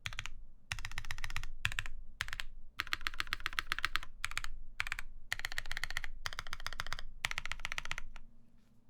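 Fast typing on a Keycult No. 2 mechanical keyboard with lubed, broken-in NK Cream linear switches on a full aluminum plate and GMK keycaps. Rapid runs of keystrokes come in bursts with short pauses between them, and the typing stops shortly before the end.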